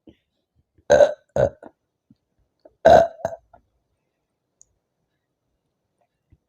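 A woman burping three times from drinking fizzy soda: two burps in quick succession about a second in, then another about three seconds in.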